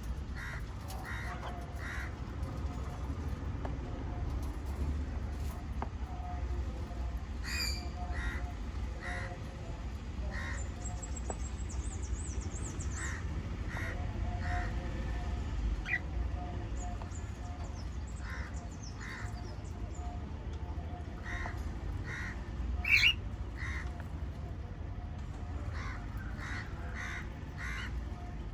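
Pet cockatiel and budgies chirping: short calls repeated in quick series, a rapid high twitter about ten seconds in, and one louder, sharper call a little past twenty seconds in, over a steady low hum.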